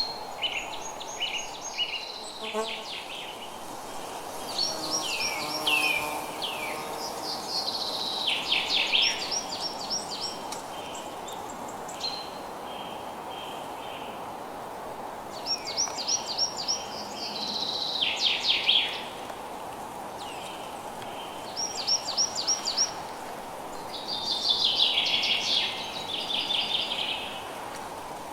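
Songbirds singing in short bursts of quick, high chirps and trills every few seconds, over a steady, even hiss of rain.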